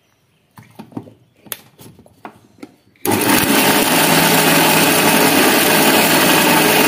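A few light knocks and clicks as the lid is fitted on a steel mixer-grinder jar. Then, about three seconds in, an Indian mixie starts abruptly and runs loud and steady, grinding drumstick-leaf chutney with a little water.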